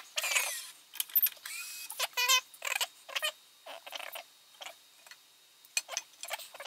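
Badminton string being pulled through the strings and grommets of a racket on a stringing machine: a series of short, irregular squeaks and swishes of synthetic string rubbing on string.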